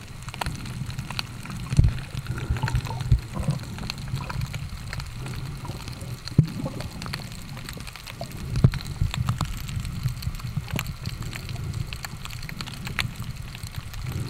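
Underwater sound from a snorkeler's camera submerged in the sea: a steady muffled wash of moving water with many scattered clicks and a few louder thumps, near two seconds in and again about nine seconds in.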